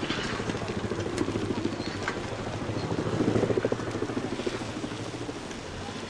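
A motor running with a fast pulsing beat over a low steady hum, swelling about three seconds in and easing off again.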